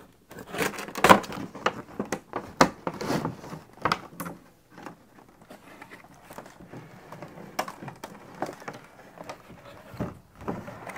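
Cardboard toy box being opened and its clear plastic packaging tray handled: a run of sharp crackles, taps and knocks, thickest in the first four seconds or so, then sparser.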